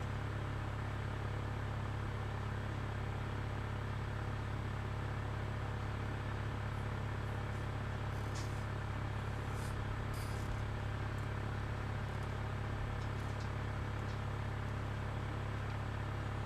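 Small electric pen drill running steadily while boring the neck hole into a plastic action-figure torso, with a few faint ticks.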